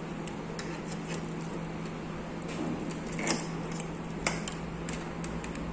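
A few light clicks and taps from handling multimeter test probes around the TV's circuit board and metal chassis, two of them sharper and about a second apart, over a steady low hum.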